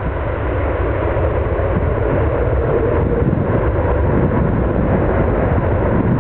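Airliner on final approach: a steady rumble of engines and rushing air, edging slightly louder.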